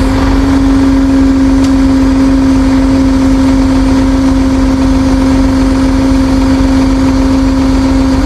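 Tow truck engine running with its hydraulic pump engaged, a loud steady hum that does not change, as the hydraulics work the wheel-lift boot.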